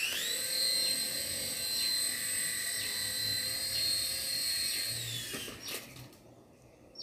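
Toy coaxial RC helicopter's small electric motors and twin rotors running with a high-pitched whine. The whine rises in pitch as the rotors spin up, holds steady while it hovers, and drops and fades away about five to six seconds in. A sharp click comes right at the end.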